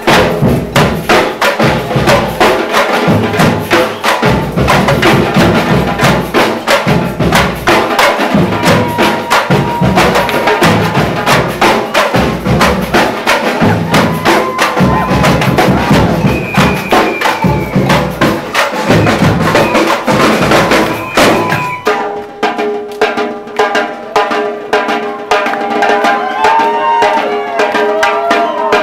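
Loud Brazilian dance music driven by dense, fast percussion. About three-quarters of the way through, the drums drop out, leaving held notes under a wavering melody line.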